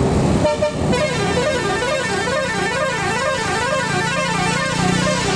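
Bus telolet horn of the 'basuri' type: several horn tones sounding together and swooping up and down in pitch about two to three times a second, the snaking 'mengular' pattern. It starts about half a second in, over the bus engine running.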